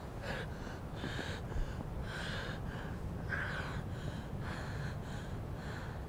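A woman's quick, ragged gasping breaths, about two a second, the panicked breathing of someone sobbing in distress, over a low steady rumble.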